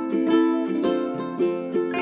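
Background music: a light plucked-string tune, several sharply picked notes a second over a steady rhythm.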